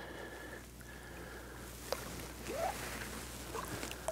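Faint water lapping against the side of a boat as a released bass swims away, with a sharp tick about two seconds in and another near the end.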